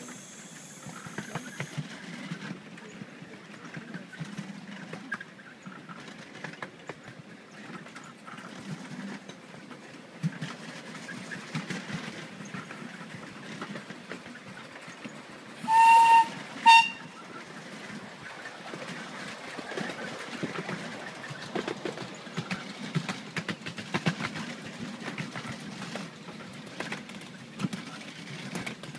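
Whistle of the miniature steam locomotive Samastipur, a 7¼-inch gauge 0-4-2 side tank: one toot of about half a second about sixteen seconds in, then a second, shorter toot. Under it, the train's carriages rattle and click steadily along the track.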